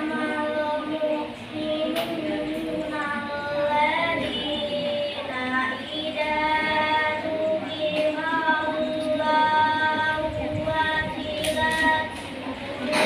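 A young girl's voice chanting the Qur'an in the melodic tilawah style, holding long ornamented notes that bend and waver in pitch, with short breaks between phrases.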